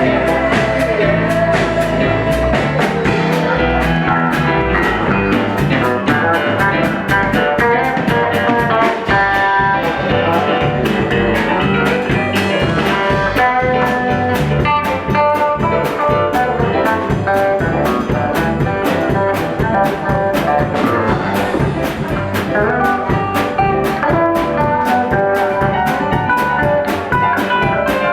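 Live band playing an instrumental passage in a blues-rock jam style: guitar notes over bass and drum kit.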